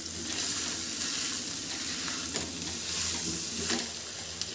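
A steel spoon stirring and scraping mashed boiled-potato stuffing around a hot steel kadai while the oil sizzles. One sharper knock comes about halfway through.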